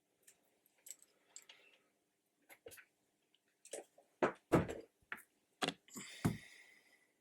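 Hands handling tools and parts on a workbench: a run of small clicks and knocks, with a few heavier thumps in the second half and a short hiss near the end.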